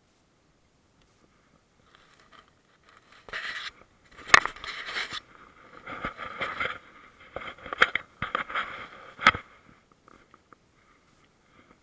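Scraping and rustling close to the microphone, with three sharp clicks: handling noise from the angler moving his gear.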